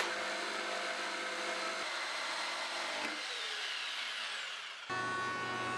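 Jigsaw cutting through a thick white oak slab, its pitch falling near the end of the cut. Just before the end, a different power tool's steady running sound abruptly takes over.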